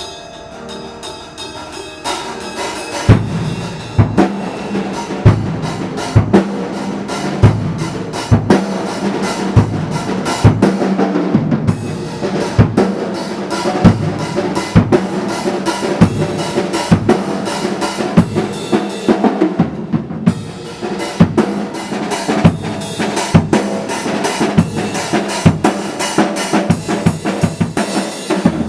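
Drum kit playing a steady beat over accompanying music. The bass drum lands about once a second, with snare and cymbal hits between. The drums come in hard about three seconds in, after a quieter opening.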